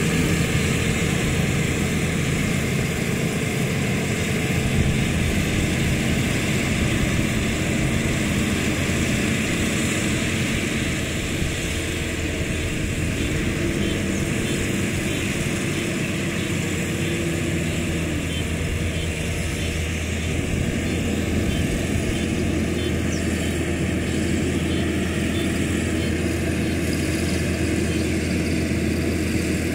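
Rice combine harvester running steadily as it cuts and threshes standing rice, a continuous engine drone with machinery noise over it.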